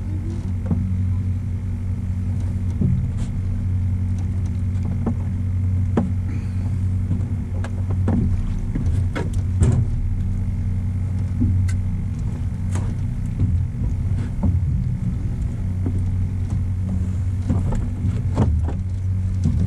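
Outboard motor running steadily at trolling speed, a constant low hum. Scattered light clicks and knocks sound over it.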